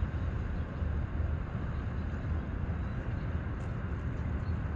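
Steady low outdoor rumble with a fainter hiss above it, with no distinct sound standing out.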